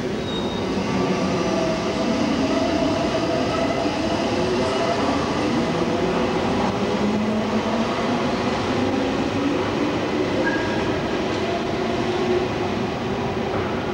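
Berlin S-Bahn class 480 electric multiple unit pulling out of an underground station: its traction motors whine, rising slowly in pitch as it accelerates, over the rumble of its wheels on the rails.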